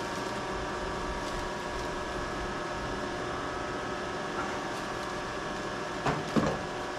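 Steady electrical hum and whine of a powered-up CNC vertical mill, held on several constant tones, with a couple of short knocks about six seconds in.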